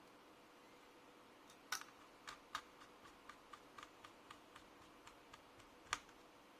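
A run of light, sharp clicks and taps of small laptop parts being handled, roughly four a second, with a louder click at the start and another near the end.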